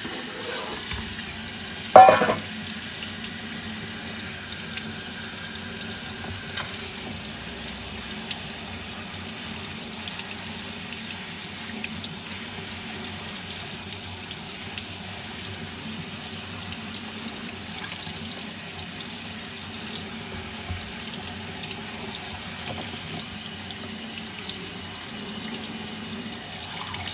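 Kitchen tap running steadily, water pouring over diced bottle gourd in a stainless steel colander in a steel sink. There is one loud clank about two seconds in.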